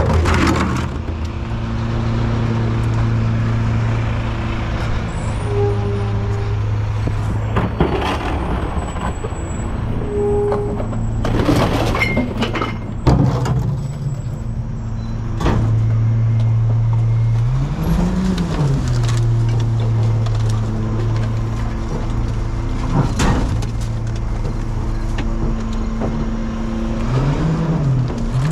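Recycling truck's engine running steadily with the hydraulic pump on, revving up and back down twice, with several loud sharp bangs.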